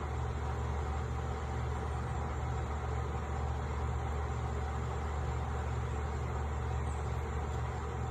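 A steady, unchanging low mechanical hum, like a running motor or engine.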